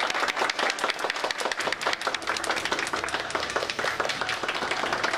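A group of people applauding, many hands clapping at once.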